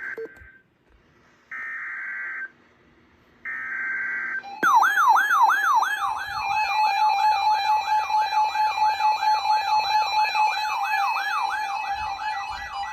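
Emergency Alert System sequence on NOAA Weather Radio: three roughly one-second bursts of buzzing digital header tones. About five seconds in, a loud warbling alert siren begins, about three sweeps a second, over a steady alarm tone. Together they signal that a severe thunderstorm warning is being issued.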